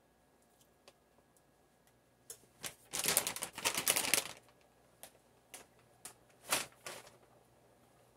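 Plastic food bag crinkling as it is handled: about two seconds of dense rustling, then a few shorter crinkles and clicks.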